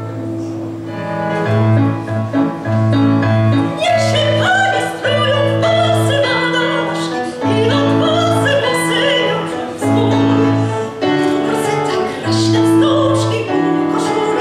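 A woman singing a song in full voice into a microphone over instrumental backing with a repeating bass line. The voice comes in strongly a few seconds in.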